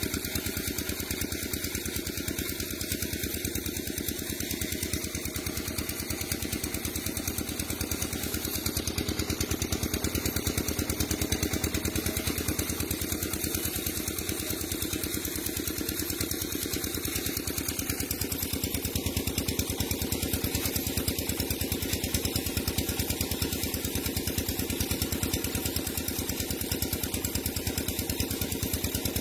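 A small engine running steadily, an even fast chugging that does not let up.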